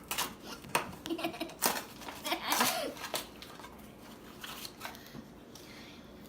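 Handling noises of slime-making supplies: scattered clicks and rustles, with a couple of brief, quiet voice sounds.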